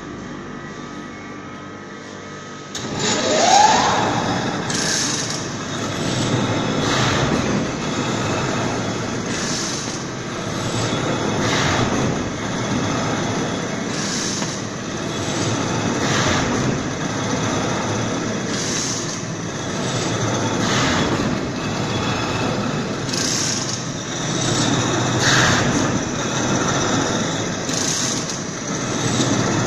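Horizontal veneer slicer running. It comes up loud with a short rising whine about three seconds in, then runs steadily, with a brief noisy stroke about every two and a half seconds as the carriage carries the flitch past the knife and cuts each veneer sheet.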